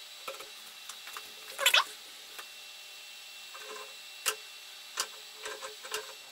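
Metal shaper being adjusted by hand: a short, loud squeak of metal parts about a second and a half in, then several sharp metallic clicks from the cranks and tool slide while the last 0.5 mm of keyway depth is set.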